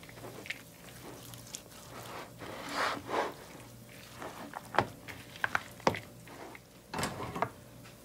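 Shredded cabbage and carrot being stirred with a spatula in a glass bowl: rustling and swishing of the wet vegetables, with a scattering of sharp taps and clicks of the spatula against the glass.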